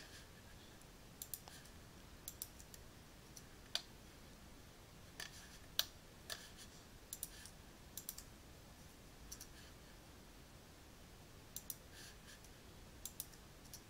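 Faint, irregular clicks of a computer mouse and keyboard keys, roughly one a second, several coming in quick pairs.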